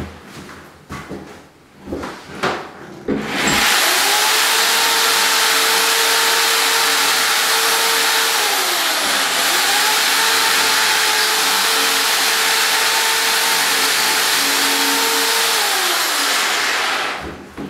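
A few knocks and clicks, then an electric drill running steadily for about fourteen seconds, enlarging a drilled hole in the wall so a wall anchor will fit; its speed dips briefly and picks up again about halfway through before it stops near the end.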